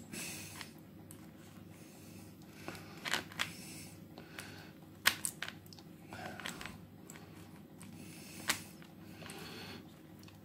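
Saw chain rattling and clicking as a new chain is worked by hand onto the bar and drive sprocket of a pole chainsaw. There are a few sharp clicks, the loudest about five seconds in.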